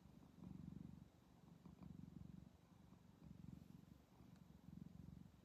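Domestic cat purring while being petted: a low, fast-pulsing purr that swells and fades with each breath, about every second and a half.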